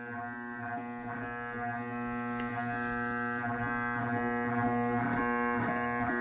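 Mastercraft drill press's electric motor, belt removed, humming steadily on one unchanging pitch without spinning up, slowly getting louder. Stalling like this is what viewers put down to a failing starting capacitor.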